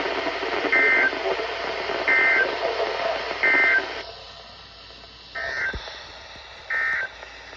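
EAS SAME end-of-message data bursts on NOAA Weather Radio: three short, shrill two-tone digital screeches about a second and a half apart over radio hiss. About four seconds in the hiss drops away and two more of the same bursts follow, as the second station sends its own end-of-message.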